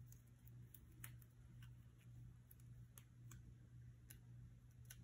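Near silence with a few faint, sharp ticks and crackles from handling a long paper sticker strip as it is peeled from its backing, over a faint low steady hum.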